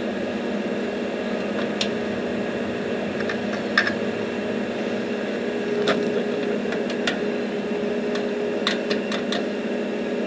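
Stick welder humming steadily while the electrode is tapped and scratched on the mower's steel axle, giving scattered sharp clicks; the arc is not striking because the rod is not making a connection.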